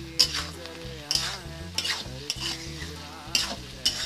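Long metal spatula scraping and knocking against a metal kadai as mixed vegetables are stirred, sizzling in the hot pan; about five scrapes.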